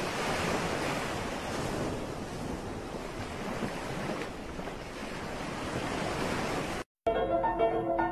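Steady wash of sea and wind noise, without a distinct splash standing out. Near the end it cuts off and light plucked-string music begins.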